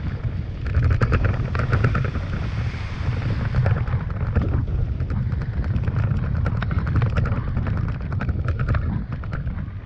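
Toyota Tacoma driving a muddy dirt trail, heard through a hood-mounted microphone: a steady low rumble and wind buffeting, with many small ticks and cracks from the tyres over the ground. It gets louder about a second in as the truck splashes through a puddle.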